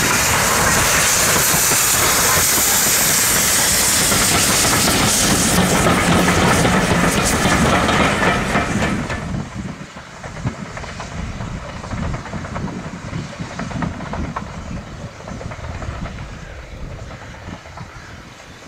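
Steam locomotive working close by with loud, steady steam hiss, a low hum joining in about five seconds in. About nine seconds in, the sound drops abruptly to a quieter train rumble with scattered clicks.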